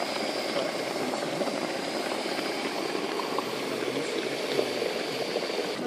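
Volcanic mud pools bubbling steadily: a dense, continuous popping and gurgling of hot grey mud and water.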